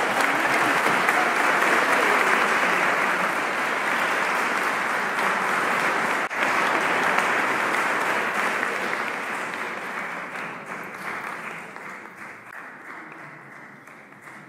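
Wedding guests applauding. The applause is steady at first, then fades away over the last five seconds or so.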